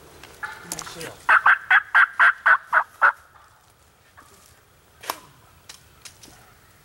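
Wild turkey calling: a loud run of eight short, evenly spaced yelping notes, about four a second, lasting about two seconds. A few faint clicks follow.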